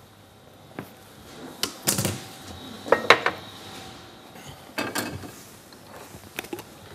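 Dishes and kitchen utensils clinking and clattering as they are handled and set down, in about five separate knocks, the loudest a little after three seconds in.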